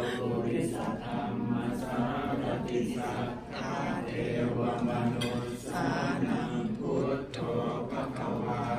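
Theravada Buddhist chanting in Pali by monks and worshippers: many voices in unison, a steady low chant moving in long phrases.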